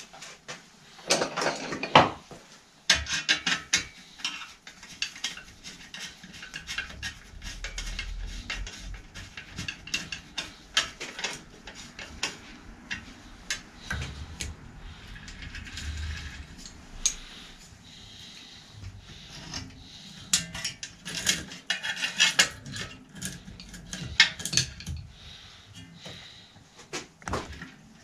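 Hand tools and metal bicycle parts clinking, clicking and scraping in irregular bursts during bicycle repair work, with a sharp knock about two seconds in.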